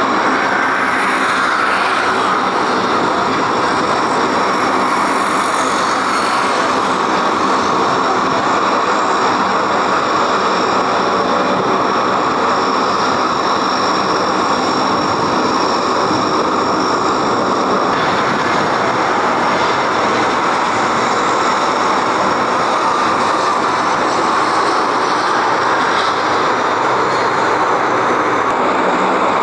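Aircraft engines running loudly and steadily: a broad rush with a high-pitched whine over it, its upper part shifting slightly about two-thirds of the way through.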